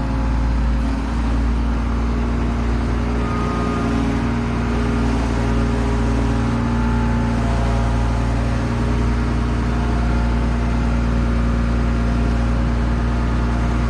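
Case 2144 combine's diesel engine running at a steady speed.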